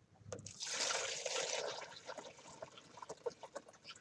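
Liquid poured from a glass bowl into a plastic bowl: a steady pour starts about half a second in, then thins to a trickle and scattered drips. This is the watery top layer being decanted off settled potato starch.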